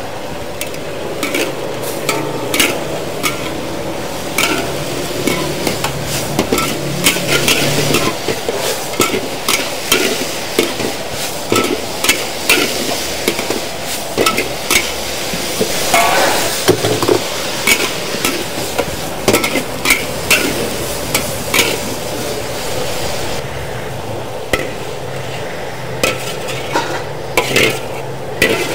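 Stir-frying in a wok: a metal spatula repeatedly scraping and clanking against the pan while food sizzles in hot oil.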